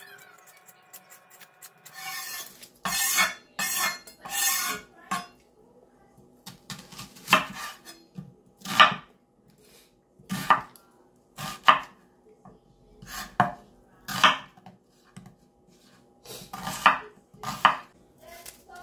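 Chef's knife cutting a red onion on a bamboo cutting board: three quick scraping strokes a few seconds in as the skin is trimmed off, then separate chops through the onion onto the board about every second or so.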